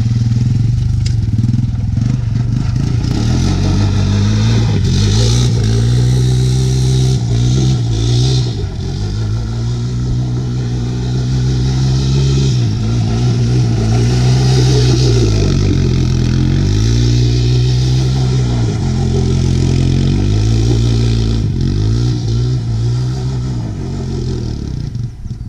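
Honda TRX 250 quad's single-cylinder engine revving hard, its pitch rising and falling every couple of seconds as the quad is ridden around on loose dirt.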